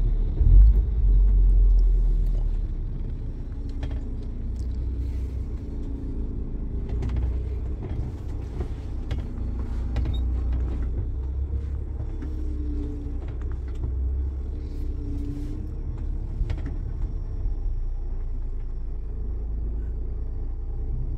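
Heavy truck's diesel engine and tyres rumbling steadily while driving, with occasional light clicks and creaks. It is louder for the first couple of seconds, then settles.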